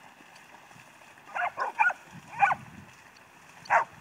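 Dog barking in short barks: four in quick succession starting about a second in, then one more near the end.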